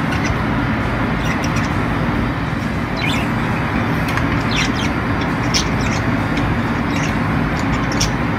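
Steady low mechanical hum, with short high bird chirps here and there from about three seconds in.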